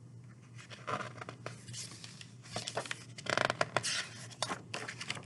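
Paper rustling as a picture-book page is taken hold of and turned, a run of short crinkly rustles.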